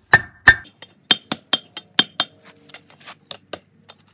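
Hammer striking sheet steel to shape it into a curved cheek piece: two heavy blows, then a quick run of lighter ringing strikes, about four or five a second, fading to soft taps, with three more quick blows near the end.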